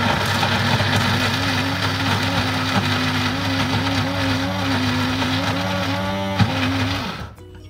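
Electric blender running steadily, grinding a spice paste for a fish curry; the motor's pitch wavers a little under the load, and it is switched off and cuts out near the end.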